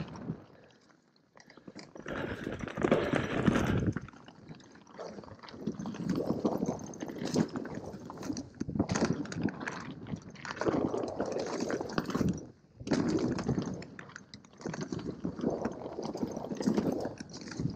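Mountain bike rolling fast downhill on a dirt and rock trail: tyres crunching over the ground, with knocks and rattles from the bike over bumps, coming in uneven surges. It goes briefly quieter about a second in.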